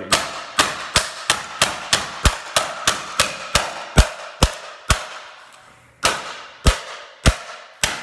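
A mallet hammering the plastic housing of a hairdryer lying on a concrete floor: a fast run of about fourteen sharp blows, roughly three a second, then a pause about five seconds in and four more slower blows. The blows are very loud.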